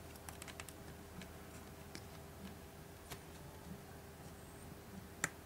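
Faint plastic clicks and taps from prying at the back cover of a Samsung Galaxy Tab 3 10.1 (GT-P5200) with an opening tool: a quick cluster of clicks in the first second, then a few scattered ones, and a sharper click near the end.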